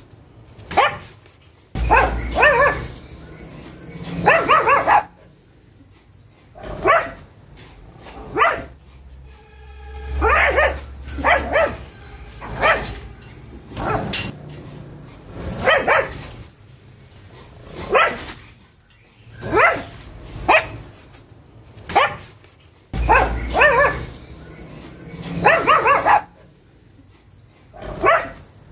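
Pug barking over and over: short barks, some single and some in quick pairs, coming about every one to two seconds.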